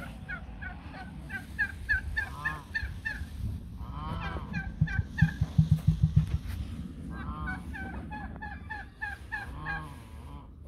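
Farmyard fowl calling over one another: rapid runs of short, high chirping notes, with several longer arching squawks in between and a burst of low, rapid pulses about five seconds in.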